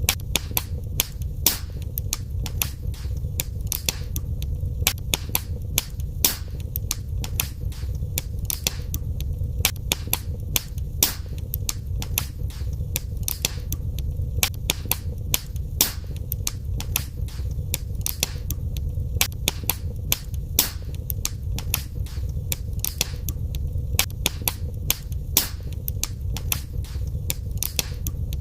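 Wood fire crackling in a fireplace: many sharp, irregular pops and snaps, several a second, over a steady low rumble of the flames.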